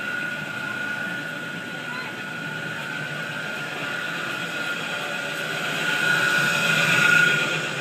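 Steady mechanical whine and hum of running machinery, with voices in the background; it swells louder for about a second and a half near the end.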